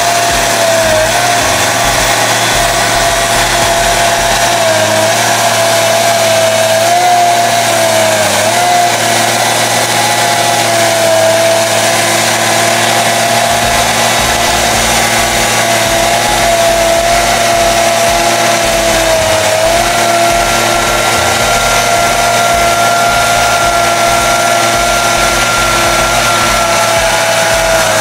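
Loaded forestry forwarder on bogie tracks climbing a steep slope, its diesel engine running hard under load with a steady high whine that wavers in pitch; a second, higher whine joins about two-thirds of the way through.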